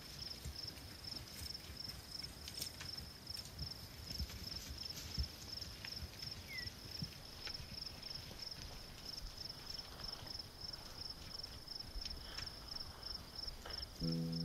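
An insect chirping in a steady run of rapid, high pulses, over scattered soft hoof steps and clicks from wild horses walking and grazing through sagebrush.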